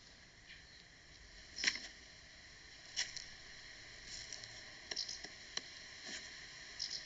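A few short, soft taps and squishy rustles, spaced irregularly: cartoon sound effects of a small plant character bobbing and hopping in grass, over a faint hiss.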